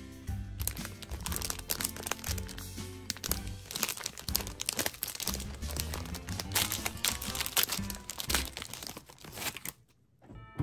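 Plastic candy wrapper crinkling and rustling as hands open and handle it, over light background music. The crinkling stops shortly before the end.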